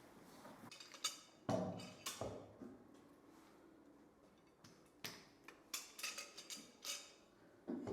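Scattered knocks and clicks of a wooden workpiece and tools being handled and set in place, about ten in all, the loudest about a second and a half in; no machine is running.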